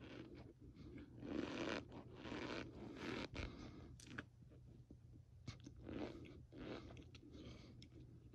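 A spoon pressing and scooping through a heap of loose cornstarch: a run of uneven soft crunches, with a few sharp clicks among them.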